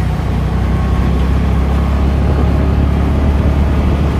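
Steady rumble of a moving scooter: the small engine running at an even cruising speed, mixed with wind buffeting the microphone.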